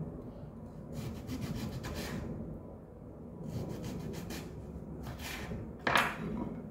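Rasping, rubbing strokes of kitchen food preparation, several in a row, with a louder stroke near the end.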